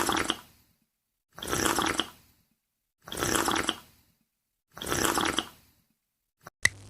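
Stock cartoon drinking sound effect: a watery gulp repeated four times, about one every one and a half seconds, as a bottle of water is drunk down.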